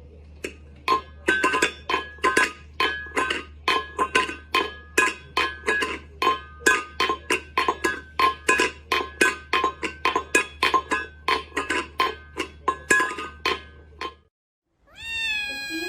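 A quick run of plucked, pitched notes, about three a second, stops abruptly. After a short gap, a cat starts meowing near the end.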